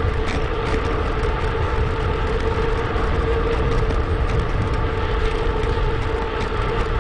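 Steady riding noise from a moving mountain bike: wind rumbling on the mic and tyres rolling, with a steady hum.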